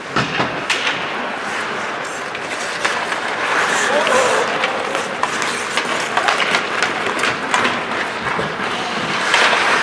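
Ice hockey play on a rink: skates scraping on the ice and many sharp clacks and knocks of sticks and puck, with voices calling out.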